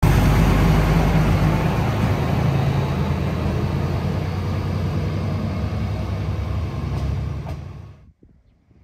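Tosa Kuroshio Railway diesel railcar running at close range, a loud steady rumble with a low hum. It fades out near the end.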